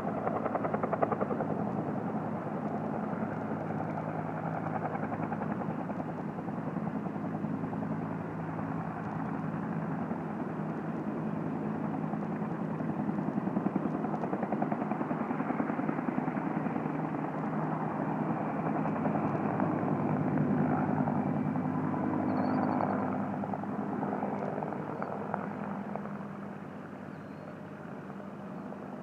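Helicopter rotor beating steadily overhead, easing off somewhat near the end.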